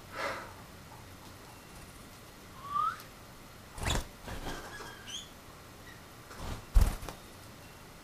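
Handling sounds of a small pet finch held in cupped hands: soft knocks and one sharper, louder thump about seven seconds in, with a few faint, short rising chirps in between.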